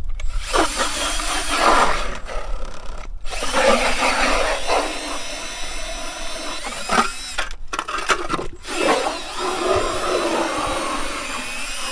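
Ice auger boring into thick lake ice, grinding steadily with a few brief pauses. The auger is struggling to get through the ice.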